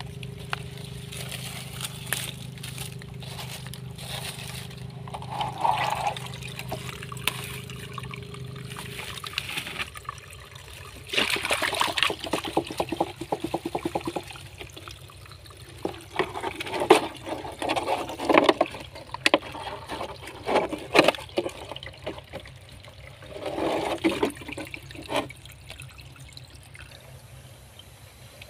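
A thin trickle of spring water running out of a rock crevice into a plastic bottle. Bouts of louder splashing and handling of the bottle come through the middle of the stretch.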